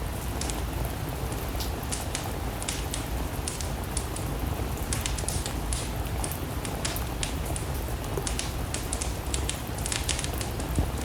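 Steady rain with a crackling wood fire: a constant hiss and low rumble, with irregular sharp pops and snaps several times a second.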